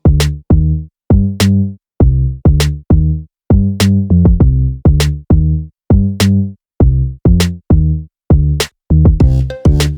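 Electronic background music: a drum-machine beat with short pitched bass notes, at a steady tempo of about two beats a second.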